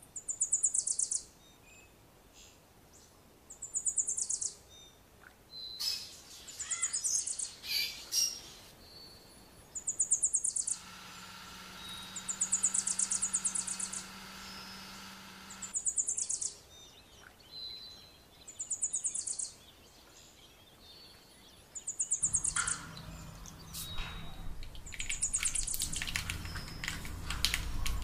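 A bird calls over and over, one short high call made of quick rapid notes about every three seconds. A kitchen mixer grinder's motor hums steadily for about five seconds in the middle, and a low rumble comes in near the end.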